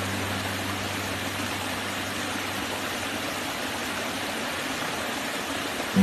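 Water rushing steadily over a low stepped cascade of stone ledges in a forest stream, an even hiss with no breaks.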